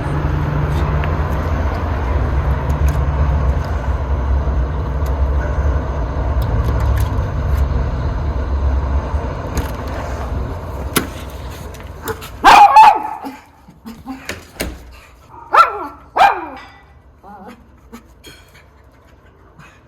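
A heavy engine's low, steady rumble, typical of potato-harvest machinery, fades away over the first twelve seconds or so. Then a miniature schnauzer barks sharply, once or twice at a time, in a few spells.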